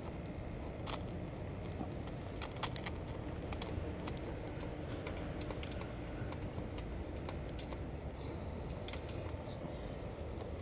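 Irregular sharp clicks and ticks, a few at a time, over a steady low rumble.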